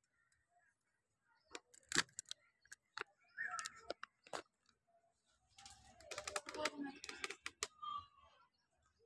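Kinesiology tape crackling in scattered sharp clicks as it is peeled and pressed onto an arm, with faint voices around the middle.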